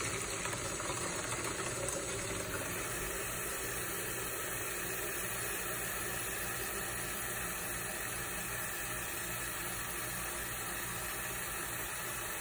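Tap water running steadily into an emptied Whoppers candy box, filling it.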